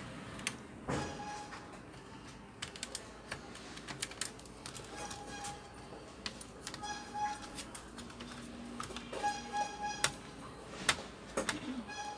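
Small clicks and taps of a screwdriver and plastic laptop case parts being handled during disassembly, with several short high-pitched tones coming in now and then, the last ones just before the end.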